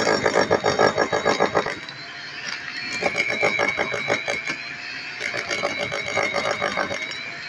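Corded rotary hammer drill boring into a concrete building edge: rapid hammering strokes with the motor's whine, in three bursts separated by short pauses where the drill runs lighter.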